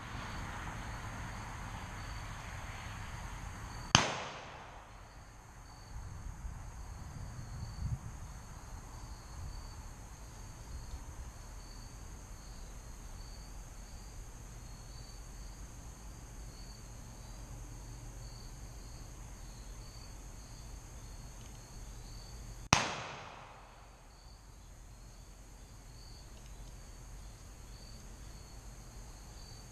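Two single gunshots fired from horseback during mounted shooting practice, each a sharp crack with a short ringing tail: one about four seconds in, the other about nineteen seconds later.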